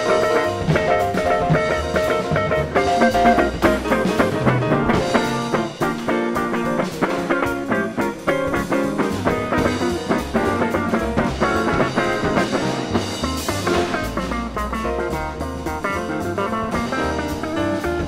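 Jazz quartet of electric guitar, piano, double bass and drum kit playing an instrumental, with a busy line of quick single notes over bass and drums.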